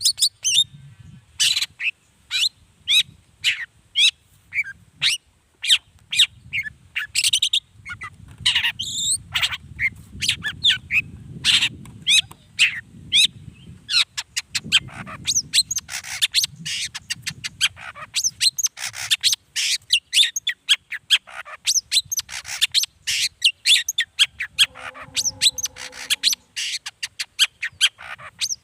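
Long-tailed shrike (cendet) singing hard in full song, a fast unbroken run of sharp, high chirps and scratchy notes, several a second. A brief lower pitched note comes near the end.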